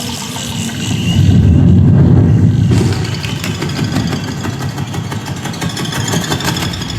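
Deep rumbling film sound effect played through a Sony HT-S20R 5.1 soundbar and subwoofer, swelling loud about a second in and easing off just before the halfway mark into a steadier rumble.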